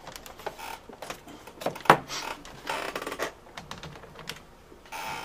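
Plastic clicks, knocks and scrapes of a closed Compaq Presario 2100 laptop being handled and set down on a wooden desk, with a sharp knock about two seconds in.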